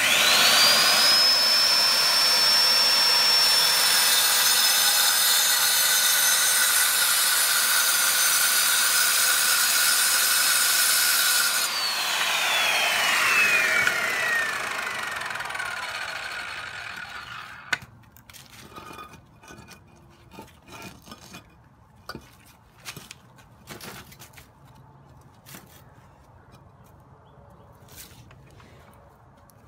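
Circular saw with a 7-inch masonry blade starts up and drop-cuts into a lava rock: a high whine over loud grinding for about twelve seconds. The trigger is then released and the whine falls away as the blade spins down over about five seconds. After that come scattered light clicks and knocks.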